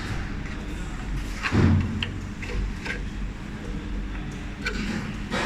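Handling noises: scattered light clicks and knocks, with one dull thump about a second and a half in, over a low steady hum.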